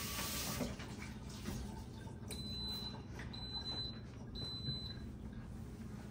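An Instant Pot electric pressure cooker beeping three times, short high steady beeps about a second apart: its signal that the 30-minute pressure-cook program has started. A faint hiss fades out in the first half second.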